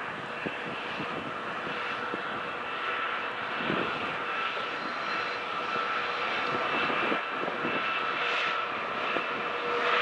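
Diesel locomotives of an approaching BNSF freight train running under power, a steady engine noise with a high whine that grows gradually louder as the train nears.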